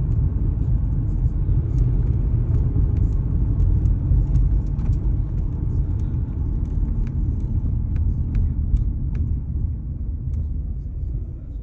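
Steady low rumble of a 2004 Toyota Corolla heard from inside the cabin as it drives, with scattered light clicks and rattles, easing off somewhat near the end. The owner says the car is knocking and shaking and that something is "just killing it to go."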